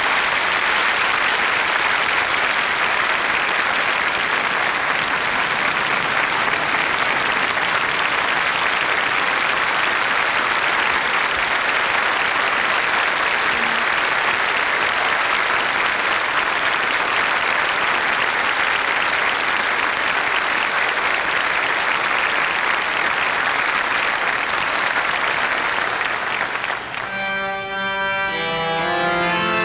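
A large congregation applauding steadily for about 27 seconds. Near the end the applause stops and an organ begins playing sustained chords.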